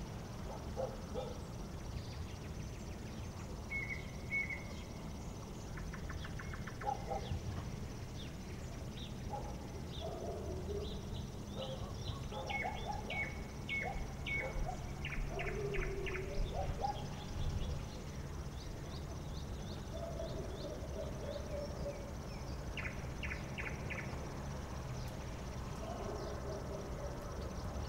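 Night-time outdoor ambience: a steady high insect trill, with several short runs of quick, evenly repeated chirps over a low, steady background hum.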